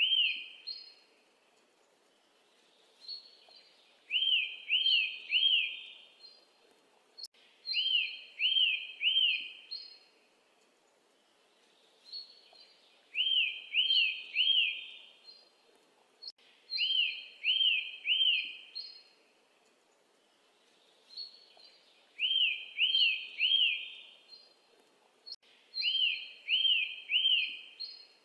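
A bird calling: groups of three quick arched notes, repeated about every four seconds, with fainter higher notes between.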